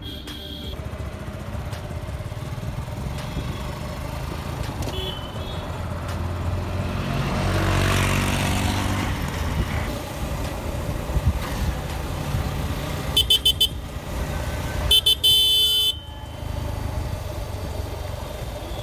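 Motorcycle running through town traffic, with steady road noise and a vehicle passing loudly about eight seconds in. A horn toots four quick times, then a longer horn blast follows about a second later.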